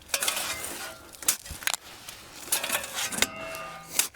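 Shovels scraping into sand-gravel mix and tossing it into a trailer: a run of gritty scrapes and pours, about six in four seconds.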